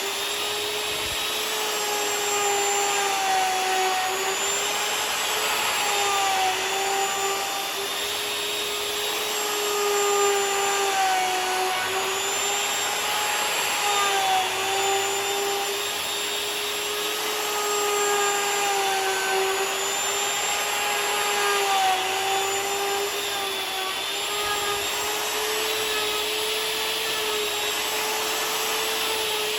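Electric router milling a walnut slab flat, its motor whine running steadily and dipping slightly in pitch and recovering every few seconds as the cutter takes load, over the hiss of the cut.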